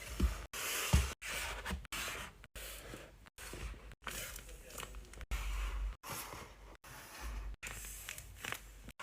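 Paper crinkling and rustling as paper squishies are handled and squeezed, in short stretches broken by abrupt, brief silences.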